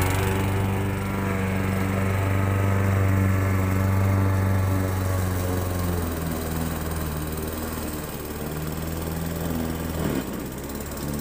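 Gasoline walk-behind lawn mower engine running steadily while cutting grass, a little louder at first and quieter through the middle. Its pitch dips briefly about ten seconds in.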